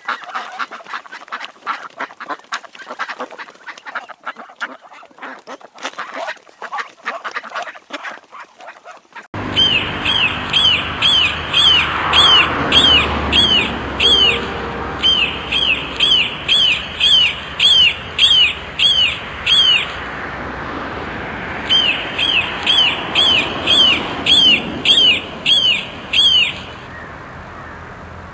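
A flock of waterfowl, geese or ducks, honking and calling over one another. About nine seconds in it cuts to a single bird repeating a sharp, falling whistled call about twice a second in three long runs, over a steady background hiss.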